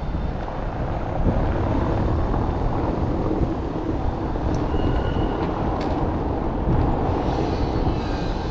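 Steady rumbling outdoor city street noise, with a brief high tone about halfway through.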